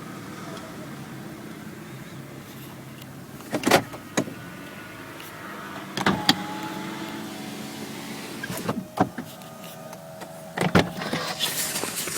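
2007 Lexus ES350 moving slowly with a low running hum. Its brakes give faint, steady squeal tones from about halfway through, a squeal that new rear pads have not cured. Several sharp clicks or knocks come through.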